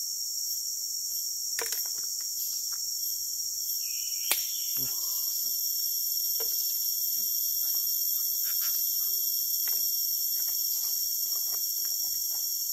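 A steady, high-pitched chorus of forest insects shrilling without a break. A few faint clicks and handling sounds come through, with one sharper click about four seconds in.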